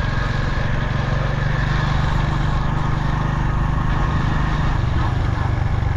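A vehicle's engine running steadily at travelling speed, with the rush of wind and road noise.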